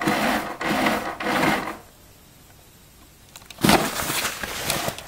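Touchless automatic paper towel dispenser running its motor to feed out paper, in a few short pulses that stop about two seconds in. A second, sharper burst of noise follows about three and a half seconds in.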